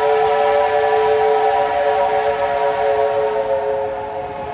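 Steam locomotive whistle blown in one long, steady blast, sounding as a chord of several notes; it sags slightly near the end.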